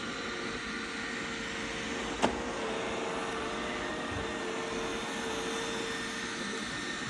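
Roomba robot vacuum running with a steady motor hum and whine. A single sharp knock comes about two seconds in.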